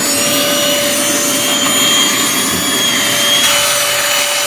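Hoover Dual Pro carpet cleaner's suction motor running with a steady whine while the powered upholstery brush on its hose spins and scrubs wet couch fabric, sucking the water back up.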